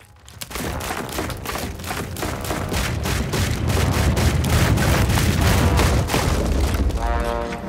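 Loud cartoon sound effect of rapid, dense banging over a deep rumble, building up over the first couple of seconds and easing near the end, where music comes in.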